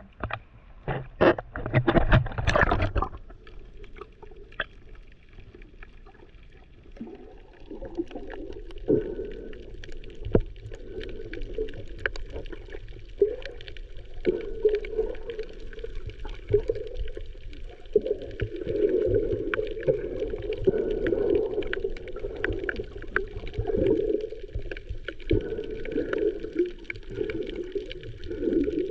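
Water sounds picked up by a snorkeler's camera, muffled and gurgling like sound heard underwater, with many scattered sharp clicks. There are a few loud splashes or knocks in the first three seconds.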